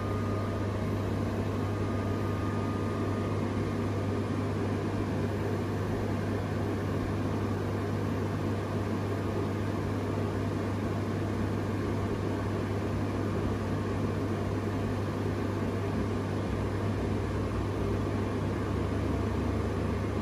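Victron Multiplus II inverter/chargers running, a steady electrical hum with the rush of their cooling fans.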